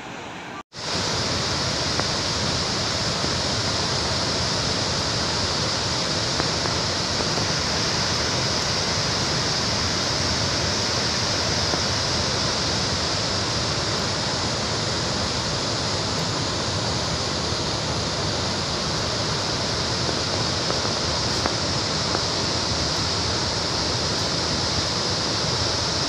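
Steady rushing of a waterfall in full flood and the floodwater pouring over the ground below it, cutting in loud after a brief dropout under a second in.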